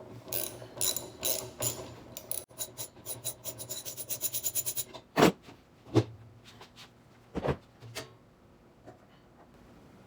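Hand socket ratchet clicking as fasteners are backed out during a washing machine teardown, the clicks coming quicker, about eight a second, before stopping about five seconds in. A few loud knocks follow.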